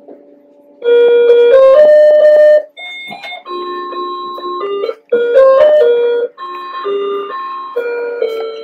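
A loud, simple electronic melody of plain stepped notes, like a cheap keyboard or chime tune; its short phrase plays twice.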